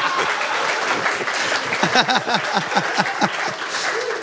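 Studio audience applauding and laughing after a punchline, a dense clapping mixed with many laughing voices, dying down near the end.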